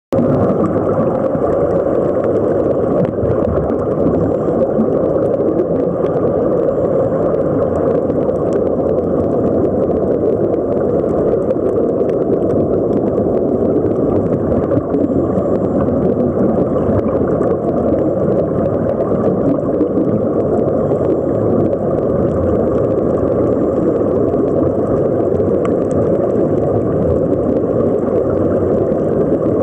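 Steady underwater noise picked up with the microphone submerged: a dense, even rumbling wash without breaks or any clear pitch.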